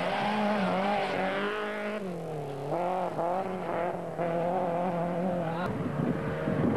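Rally car engine revving hard on a gravel stage. Its pitch falls as the throttle lifts about two seconds in, then climbs and wavers again as the car drives through the bend. Shortly before the end the sound changes abruptly to another car's engine.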